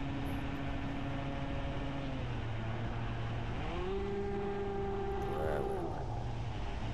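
Brushless electric motor and propeller of a Reptile S800 FPV flying wing heard from on board, with wind noise. Its pitch drops about two seconds in, rises about four seconds in and holds, then drops again near the end as the throttle is cut and added on the landing approach.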